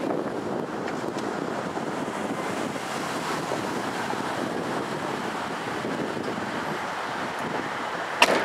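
Fireworks display heard from the crowd: a steady noisy rush under faint distant pops of shells bursting, and one sharp crack near the end, the loudest sound.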